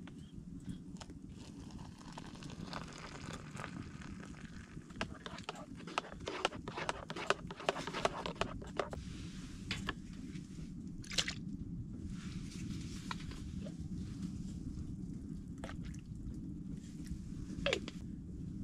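Close-up crunching and chewing of a crisp pan-cooked pizza, with a dense run of crunchy bites about five to nine seconds in and a few single clicks after, over a steady low hum.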